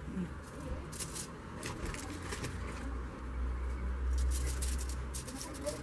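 Light clicks, taps and scrapes of flat gingerbread pieces being handled and set down on an aluminium-foil-covered tray, over a low steady background rumble.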